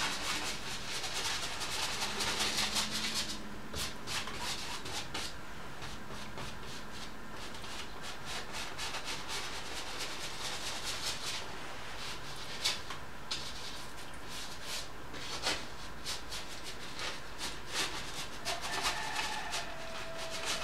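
Flat bristle brush scrubbing oil paint onto a painting panel in quick rasping strokes, laying in an underpainting. The strokes are dense for the first few seconds, then lighter and more scattered.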